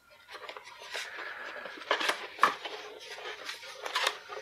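Cardboard flaps of a printed toy box being pried open and handled by hand: rustling and scraping of card, with a few sharp clicks and snaps, the loudest about halfway through.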